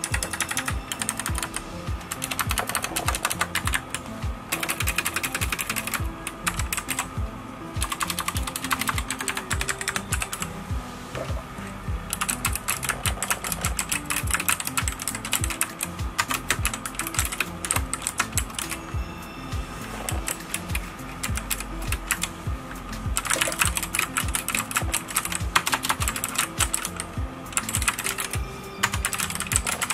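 Fast typing on a CJ ENM ENTUS K750G Battle mechanical keyboard with optical switches: dense runs of key clacks broken by short pauses. Background music with a steady beat plays underneath.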